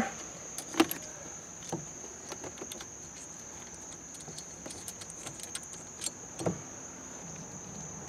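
Steering wheel puller and its bolts being handled and threaded into the steering wheel hub by hand: a few light clicks and taps of metal parts, one near the start and another about six seconds in. A steady faint high-pitched tone runs underneath.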